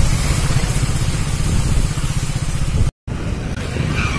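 Motorcycle engine running under way, a rapid low pulsing with a steady hiss over it. The sound cuts out completely for a moment about three seconds in, then the engine resumes.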